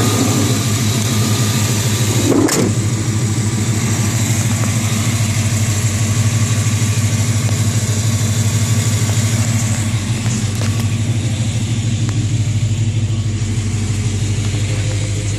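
1995 GMC 1500's 5.7-litre TBI V8 with aftermarket headers, idling steadily with an even, regular exhaust pulse, freshly started. A single sharp knock about two and a half seconds in.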